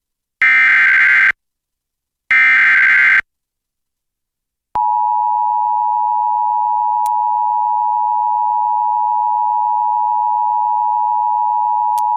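Emergency Alert System tones: two short bursts of the SAME digital header's data screech, each just under a second and about a second apart. About five seconds in, the two-tone attention signal (853 and 960 Hz) starts and holds steadily, announcing a National Weather Service severe thunderstorm warning.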